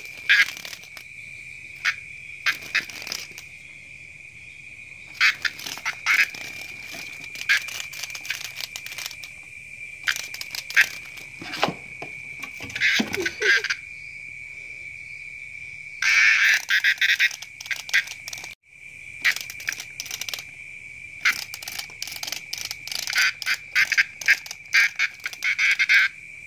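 Kittens scuffling and pouncing on wooden floorboards: scattered knocks, scrapes and paw patters, with busier flurries about two-thirds of the way in and near the end. Under it, a steady high-pitched trill from night creatures calling never stops.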